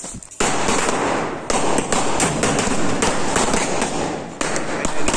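A firecracker on the ground going off. About half a second in it bursts into a loud, continuous crackling hiss with many sharp pops, lasting about four and a half seconds and tailing off near the end.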